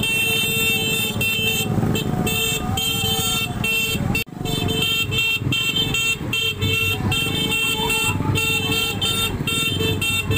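Vehicles and motorcycles running in a slow street procession, with horns tooting over and over above the engine noise. The sound cuts out briefly about four seconds in.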